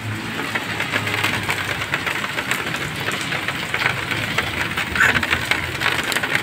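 Heavy rain pattering down, a dense crackle of drops, with a low hum underneath for the first second or so.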